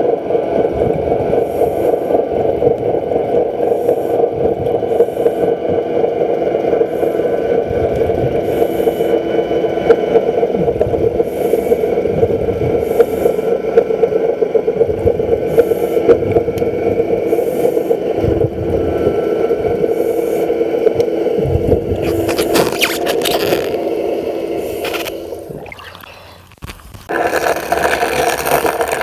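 Underwater sound heard through a diver's camera: a steady mechanical drone with irregular bubbling and fizzing spurts. Near the end it fades out, then a louder hissing noise starts abruptly.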